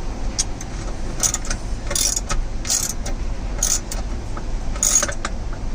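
Ratchet wrench being worked in short strokes to snug a bolt down by hand, giving irregular bursts of clicking every half second to a second.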